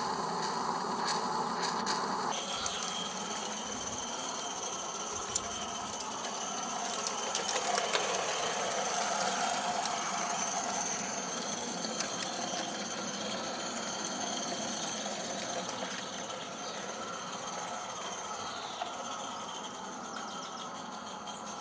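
Accucraft Mortimer live-steam garden-railway locomotive running, a steady hiss with light mechanical clatter, easing slightly toward the end.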